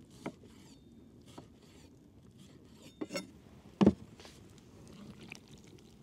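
Food-preparation handling: a few sharp knocks and clicks, the loudest a little under four seconds in, amid light rustling.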